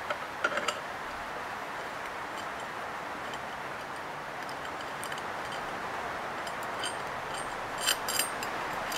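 Steady hiss of rain, strong enough to disturb the recording, with a few light metallic clicks and clinks near the start and again near the end.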